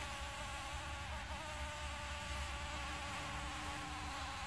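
Bumblebees buzzing steadily around their opened nest, a continuous even drone with a low rumble underneath.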